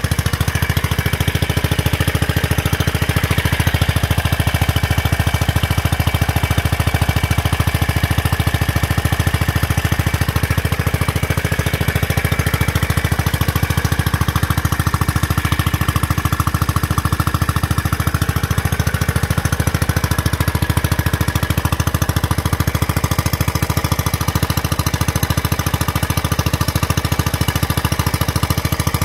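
Kohler 4 single-cylinder engine running steadily at a fast, even firing beat while it drives a field irrigation water pump.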